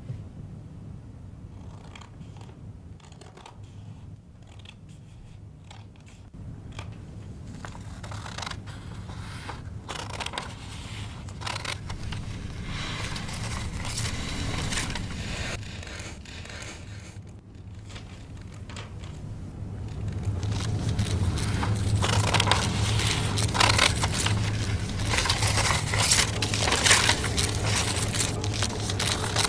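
Scissors snipping through sheets of paper, with paper rustling and crinkling as it is handled. The cutting and rustling grow louder and busier about two-thirds of the way through.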